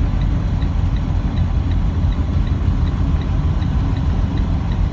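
Semi truck's diesel engine and drivetrain rumbling steadily in the cab while crawling along at low speed on a snow-packed road with tire chains on. A light, even ticking runs through it about three times a second.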